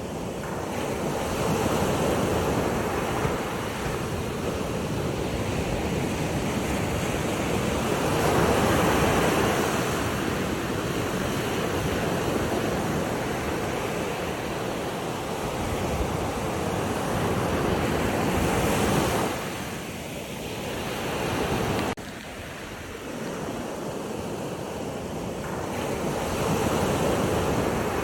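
Ocean waves surging and washing in, a continuous rush that swells and eases in slow surges several seconds apart. The level drops abruptly about three-quarters of the way through.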